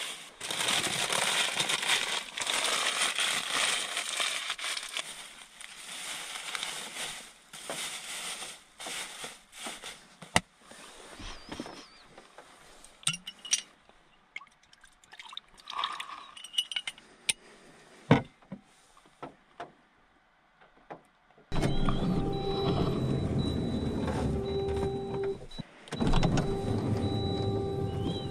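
A plastic bag crinkling as it is handled, then scattered clicks and clinks as a swing-top glass bottle and things on the table are handled. About 21 seconds in, a small electric motor starts with a steady hum, cuts out briefly and runs again.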